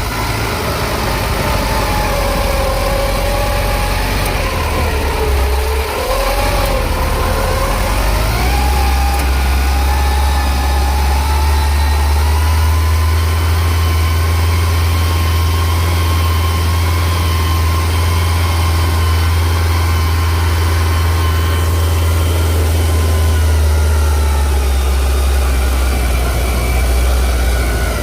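Engine of rice-harvesting machinery running steadily; its pitch sags about five seconds in, climbs back over a couple of seconds, then holds steady.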